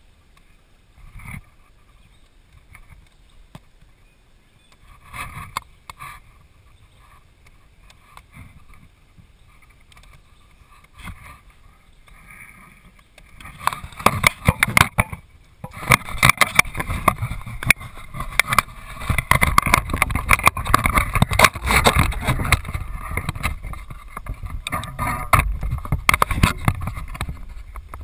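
Kayak noises close to the microphone: a few light splashes and knocks at first, then from about halfway through a loud, dense run of rustling, knocking and water noise as the kayak is paddled and moved about.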